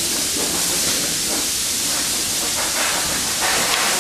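A steady, loud hiss of noise, spread evenly from low to very high pitch, with no clear strikes or tones in it.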